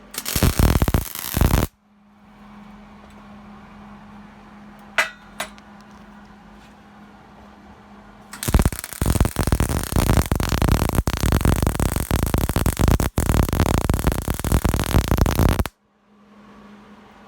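MIG welder arc crackling and sputtering as beads are laid: a short burst of about a second and a half, then a steady hum for several seconds, then a long weld of about seven seconds that cuts off sharply.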